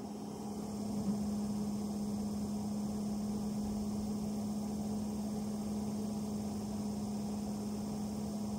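Skoda Fabia 3 heater blower fan running behind the fresh-air intake: a steady hum with air rushing, building up over the first second and then holding level. No knocking comes from the repaired fresh-air flap.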